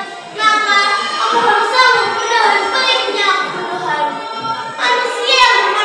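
A young girl's voice delivering an Islamic speech in a melodic, chant-like way, with pitch rising and falling and some long held notes. There is a short dip just after the start.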